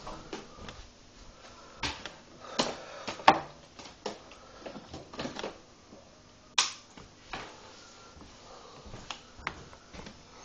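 A series of irregular clicks and knocks, the sharpest about three seconds in and again about six and a half seconds in.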